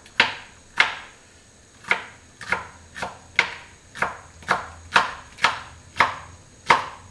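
Chef's knife chopping red bell pepper on a cutting board: a run of sharp knocks as the blade hits the board, about two a second, with a short pause about a second in.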